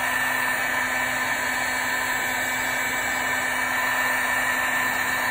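Electric heat gun running steadily: a constant rush of blown air with a faint steady whine, used to shrink heat-shrink tubing over a 4-gauge wire terminal.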